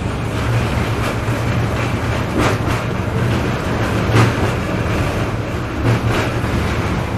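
Tram running, heard from inside the passenger car: a steady low hum with rolling noise, and a few short knocks at intervals of a second or two.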